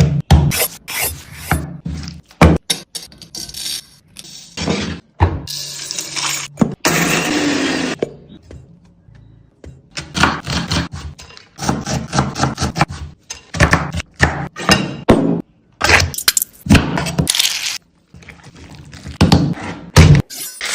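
A run of kitchen cooking sounds in quick, abruptly cut clips: knocks and clatters of utensils and cookware, scraping, and stretches of noisy hiss.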